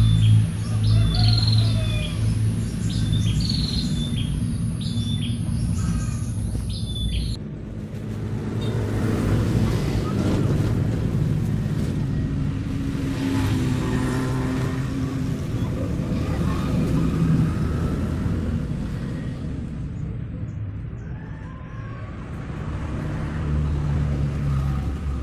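A bird chirping over and over above a steady high insect buzz, both cut off abruptly about seven seconds in. Then a low rumble of motor traffic rises and fades over a steady low hum.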